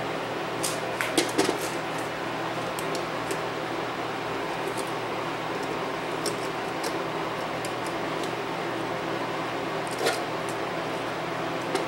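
Small clicks and taps of a DAT deck's circuit boards and wiring being handled during reassembly: a cluster about a second in and another click near the end, over a steady fan-like hiss and hum.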